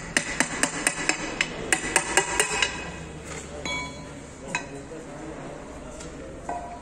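A quick run of sharp metallic knocks, about four or five a second for the first couple of seconds, then a couple of single ringing clinks, as the cast housing of a manual truck gearbox is worked loose and lifted off by hand.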